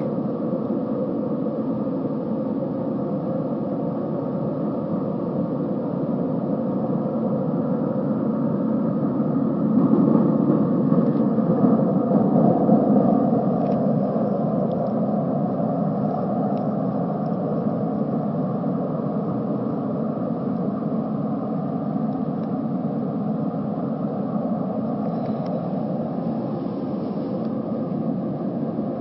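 Unexplained droning hum from the sky: a steady low drone made of several layered tones. It swells louder about ten seconds in and eases back a few seconds later.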